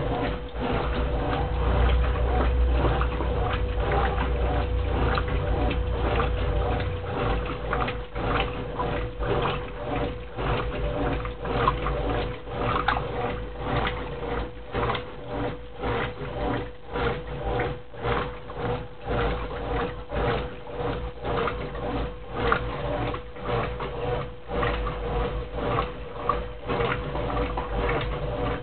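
Brastemp Clean 10 kg top-loading washing machine agitating a duvet in water: a steady motor hum under rhythmic sloshing, about one stroke a second. A heavier low rumble drops away about seven seconds in.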